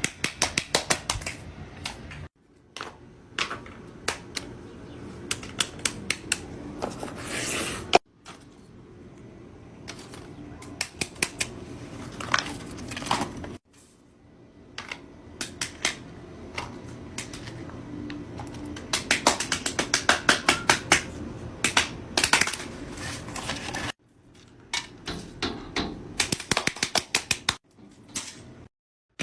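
Fidget toys being handled: quick runs of sharp clicks and taps, with rustling between them. The runs are split into short segments by abrupt cuts.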